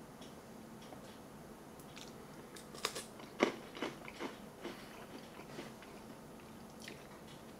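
A dry MRE cracker being chewed close to the microphone: a handful of crisp crunches in the middle, between stretches of quiet.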